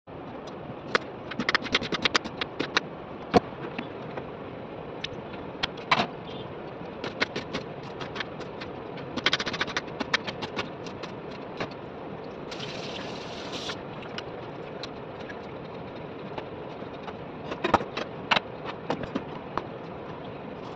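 Kitchen sounds at a stove where oil is heating in an iron kadai: a steady hiss under scattered sharp clicks and ticks, bunched in a few clusters, with a short hissing burst about twelve and a half seconds in.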